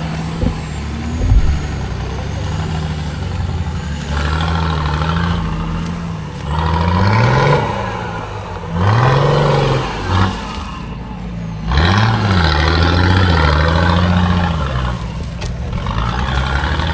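Off-road vehicle engine running and being revved hard, its pitch climbing and dropping sharply several times, with steadier running in between.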